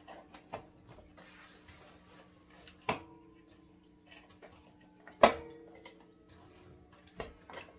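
Shop vacuum's plastic parts being handled and fitted together: a few sharp knocks and clicks, the two loudest about three and five seconds in, over a faint steady hum.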